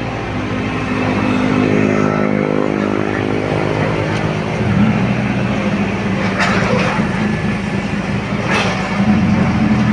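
Hitachi Zaxis 110 excavator's diesel engine running under load, its pitch shifting as the hydraulics work. Two short rushing bursts come about six and a half and eight and a half seconds in.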